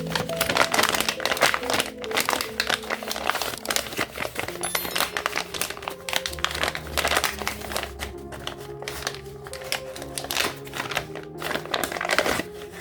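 Plastic packaging crinkling and rustling as it is handled and opened, in dense irregular crackles, over background music.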